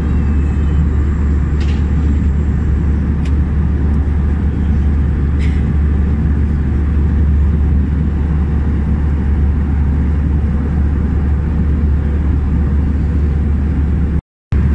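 Steady low drone of an Airbus A319 cabin in flight, engine and airflow noise, with a few faint clicks. The sound drops out for a moment near the end.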